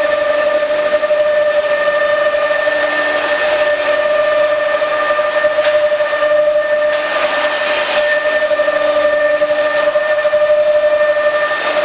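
CNC wood router running: a steady high-pitched whine with overtones over a hiss of machine noise. The noise swells briefly about seven seconds in.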